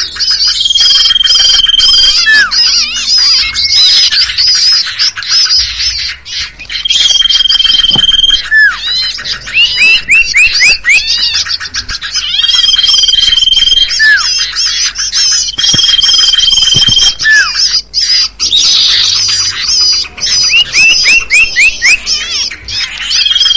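Looped lure recording of common iora (cipoh) calls. A long, level whistle repeats every few seconds, each ending in a short falling note, over busy high-pitched chattering.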